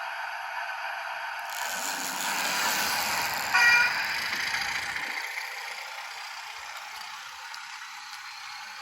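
Recorded diesel engine sound from a model OO gauge locomotive's small speaker, joined from about two seconds in by a rumble from the running model. A short, high horn-like tone is the loudest moment, about three and a half seconds in, before it settles back to a steady thin hum.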